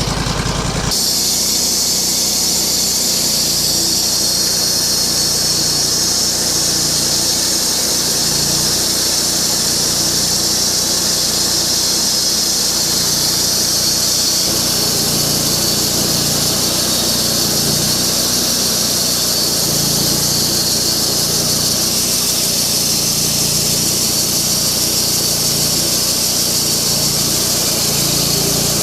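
Portable bandsaw sawmill with a Lenox blade cutting through a wide log: the engine runs under load with a steady high-pitched squeal and hiss from the blade in the wood. About a second in, the engine throttles up and the cut begins.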